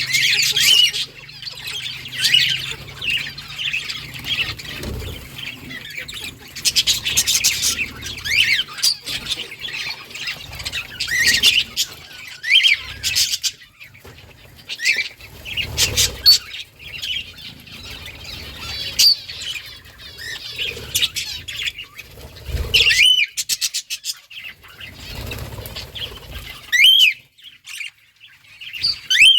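A flock of budgerigars chirping and squawking in many short, overlapping calls, with a few bursts of wing flapping.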